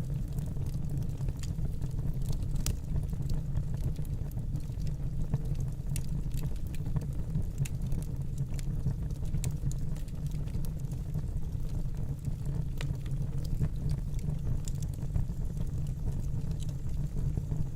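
Fire burning in a fireplace: a steady low rumble of the flames with irregular sharp crackles and pops scattered throughout.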